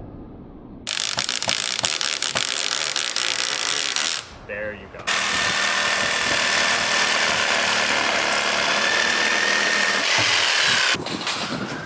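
Power drill driving screws into wood in two runs, a shorter one starting about a second in and a longer steady one of about six seconds, with a rapid mechanical clatter.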